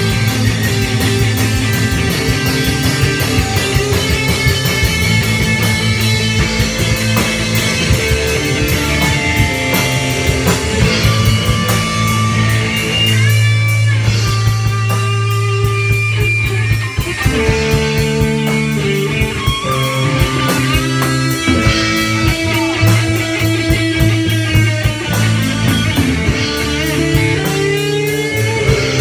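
Rock band jamming live with no vocals: electric guitars and a drum kit, with a lead guitar bending notes over held low notes.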